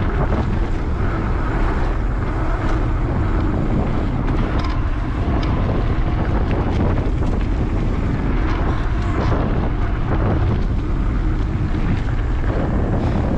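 Wind buffeting the microphone of a camera on a moving mountain bike, over the rolling noise of its knobby tyres on a dirt trail. Occasional small clicks and rattles from the bike.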